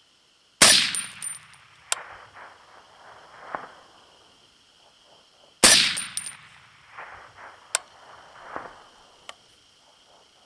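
Two suppressed rifle shots from an FN SCAR, about five seconds apart, each a sharp crack with a short echoing tail, followed by a few fainter sharp clicks.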